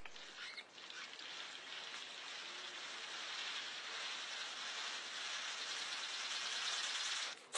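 A steady rushing hiss that slowly grows a little louder, dropping away briefly just before the end.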